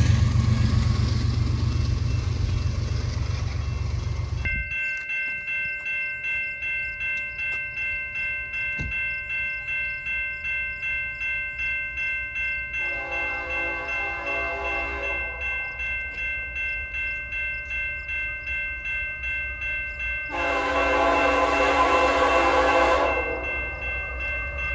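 Grade-crossing warning bell ringing with an even beat while an approaching freight locomotive sounds two long blasts on its multi-note air horn for the crossing. It opens with a low rumble that fades and cuts off about four seconds in.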